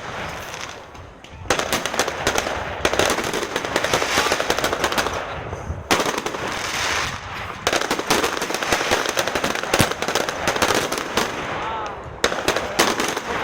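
Fireworks display: rapid, dense crackling and popping of firework shells over a steady hiss, nearly continuous from about a second and a half in, with brief lulls.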